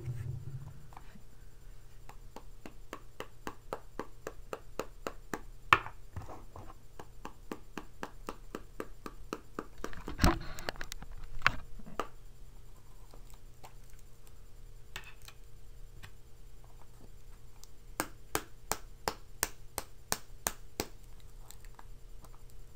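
Fingers flicking a tin of Copenhagen dip over and over, about three sharp taps a second, to pack the tobacco, with a short scraping rustle about ten seconds in and a pause before a last run of taps.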